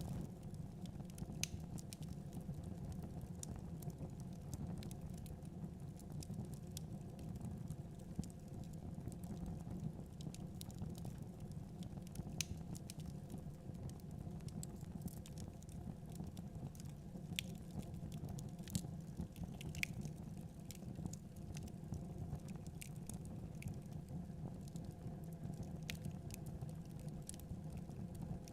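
Wood logs burning in a fireplace, crackling with scattered sharp pops at irregular moments over a steady low rushing noise.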